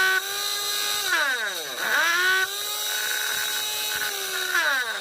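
Mixer grinder motor running at full speed with a test jar fitted: switched off and winding down about a second in, started again and run up about two seconds in, then switched off and spinning down near the end. It runs steadily, the sign of the repaired jar's new socket and spindle turning true.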